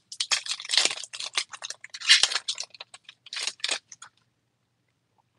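Baseball trading cards flipped quickly off a stack by hand, their surfaces and edges sliding and snapping against each other in rapid crisp strokes until about four seconds in.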